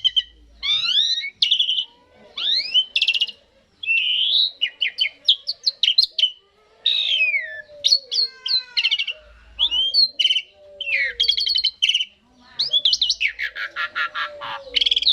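Asian pied starling song: a varied run of whistles, rising and falling glides and quick chattering notes in short phrases, with a dense rattling run near the end.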